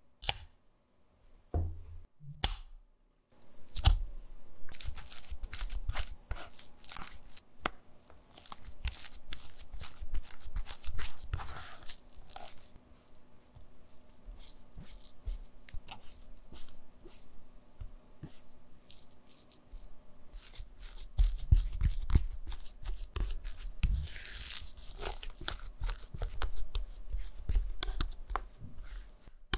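Mashed potato scraped through a stainless steel mesh sieve, a rasping scrape with many small clicks. Later a spatula mixes and smooths the potato in a wooden bowl, with soft low thumps and scraping, louder near the end.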